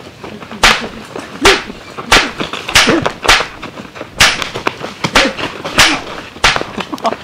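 A fast series of staged fistfight punch sound effects: about eleven sharp slapping hits, roughly one every half second to second, with short grunts after some of them.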